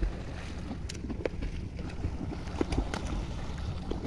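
Wind buffeting the microphone over water lapping around a small boat at sea, with scattered sharp clicks or splashes.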